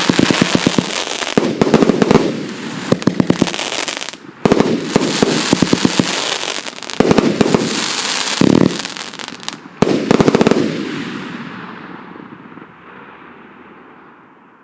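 Joker Fireworks "Kosmoboom" JF CV25-30-138, a 138-shot fan-effect fireworks cake, firing rapid volleys of 1–1.2-inch shots that burst overhead with crackling. After a last volley about ten seconds in, the crackle dies away.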